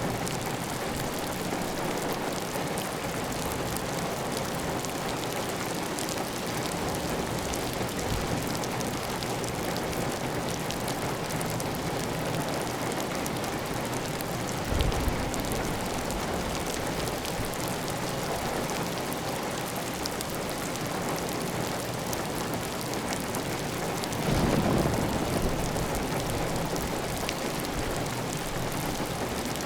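Heavy, steady rain on a clay tile roof with water running off the roof edge. A brief low thump about halfway through and a louder low swell lasting about a second near the end rise above the even patter.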